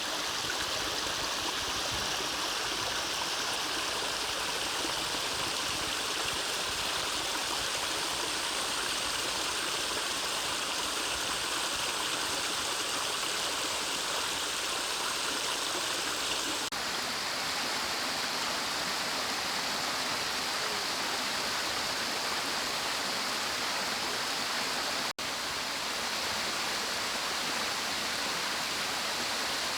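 Mountain stream running steadily over rocks, a continuous rushing of water. About two-thirds of the way through, the character of the water sound shifts abruptly, and near the end it drops out for an instant.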